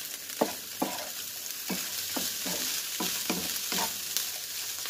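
Fried rice sizzling in a nonstick pan while a plastic spatula stirs and tosses it, each stroke scraping the pan roughly twice a second over a steady hiss.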